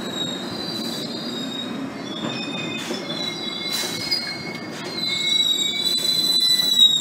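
GO Transit bilevel passenger coaches rolling past at a platform, steel wheels squealing in several high, wavering tones over a low rolling rumble; the squeal grows louder in the last two seconds.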